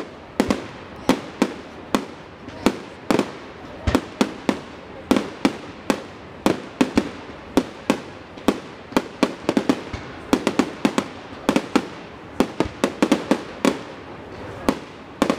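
Aerial firework shells bursting in a rapid, irregular barrage of sharp bangs, two or three a second, some in quick clusters.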